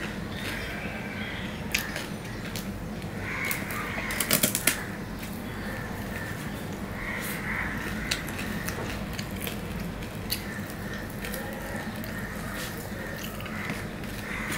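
Eating by hand from a steel plate: fingers mixing rice and fried fish against the plate and chewing with wet mouth clicks, a scatter of sharp clicks with a dense run of them about four seconds in. Short calls sound several times in the background.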